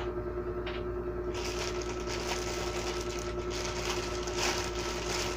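Sharp scissors cutting open a plastic courier package, the plastic crackling and crinkling steadily from about a second and a half in, with a single click shortly before.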